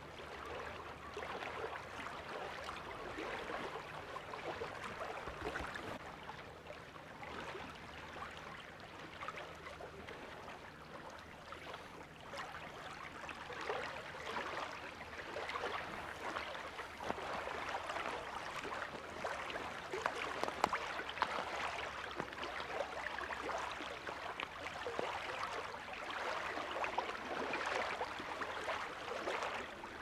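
Water rippling and lapping in a steady, fluctuating wash.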